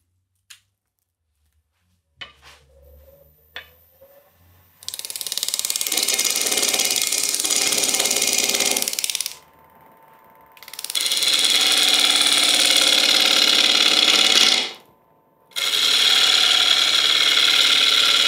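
Hurricane carbide roughing tool cutting the outside of a spinning wooden bowl blank on a Robust American Beauty lathe: a loud, scratchy cutting noise in three passes of a few seconds each, with short breaks between them. Before the first cut there are a few clicks and a faint hum as the lathe runs up.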